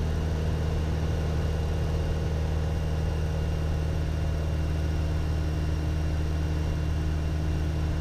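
Piper Warrior's four-cylinder Lycoming engine and propeller giving a steady, even drone in level cruise, power set back to about 2300 rpm.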